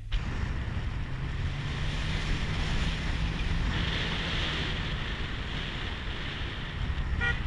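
A car driving along a dirt and gravel road, heard from inside the cabin: a steady low engine hum under a rushing rumble of tyres on the gravel.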